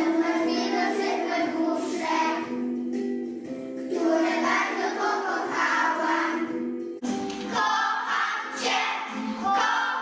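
A group of young children singing a song together in unison. The sound breaks off abruptly about seven seconds in, and the singing carries straight on.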